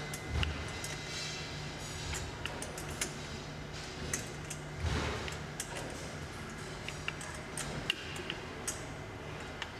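Assembly handling noises from trolley parts being fitted together: scattered light clicks and ticks with a few soft thumps over a steady low hum.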